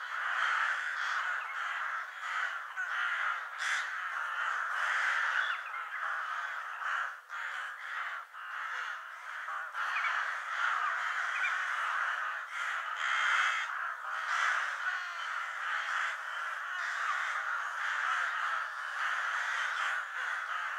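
Crows cawing, many calls overlapping into a continuous chorus with no breaks.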